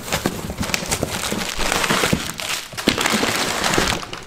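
Plastic air-cushion packaging and a cardboard box rustling and crinkling as hands rummage through them, with irregular crackles and small knocks.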